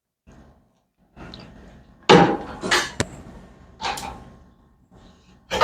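Dishes and cutlery clattering: several separate knocks and clinks of plates, bowls and serving utensils being handled, the loudest about two seconds in, with a sharp click at about three seconds.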